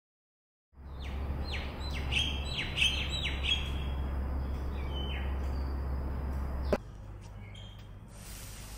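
Birds chirping outdoors, a string of short falling calls over a steady low rumble. The calls come thickest in the first half, and one more follows a little later. Near the end a click cuts to quieter background with a faint high hiss.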